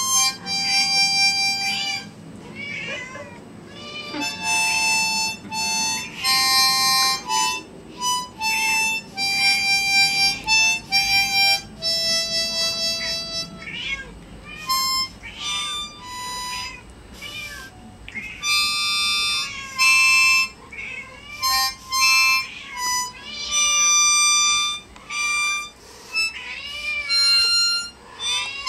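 A harmonica played haltingly in short held notes, poorly played, with cats meowing along between and over the notes; each meow rises and then falls in pitch.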